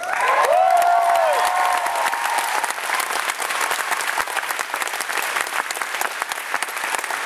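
Audience applauding in a large hall, a dense steady clapping, with a few voices calling out in the first couple of seconds.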